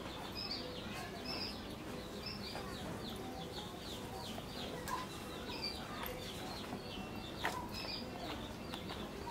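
Small birds chirping over and over in short, high, falling notes. One sharp click comes late on.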